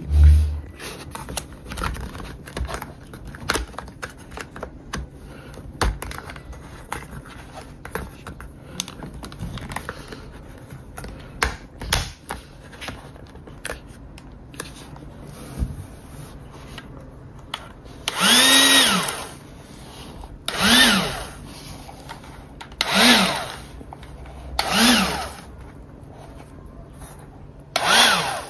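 Plastic toy handling: small clicks and knocks as the figure is fitted onto the bubble gun. Then, from about 18 seconds in, the automatic bubble gun's battery motor and fan whir in five short bursts of about a second each, each spinning up and winding down in pitch as bubbles spray out.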